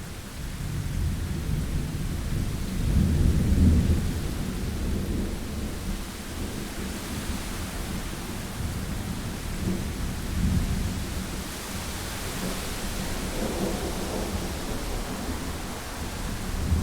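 Thunderstorm: low rolling thunder over steady rain, swelling loudest about three to four seconds in, with a smaller rumble later on.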